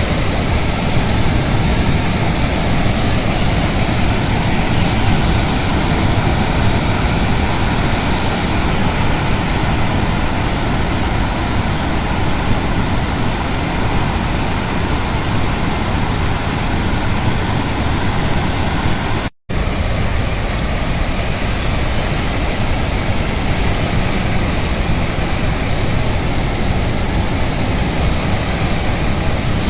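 Floodwater pouring over the Victoria Dam spillway: a loud, steady rushing noise, broken once by a brief silent gap about two-thirds of the way in.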